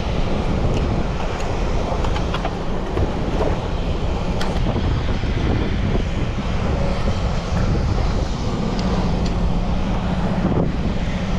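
Steady low rumble of wind on the microphone and choppy water, with a constant low hum underneath and a few light clicks.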